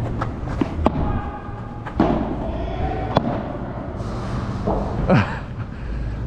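Padel ball being hit by rackets and bouncing on the court and walls: a series of sharp, irregularly spaced knocks.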